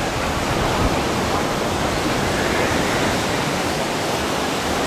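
Steady, even rushing noise of ocean surf and wind.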